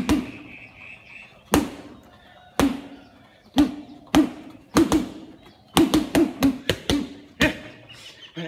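Boxing gloves punching a Sandee heavy bag: sharp thuds, single punches about a second apart at first, then quicker combinations of several punches in a row from about six seconds in.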